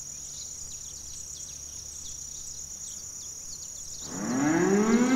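Insects buzzing steadily with many short bird chirps over a low hum. About four seconds in, a pitched musical tone rises steadily in pitch and grows louder.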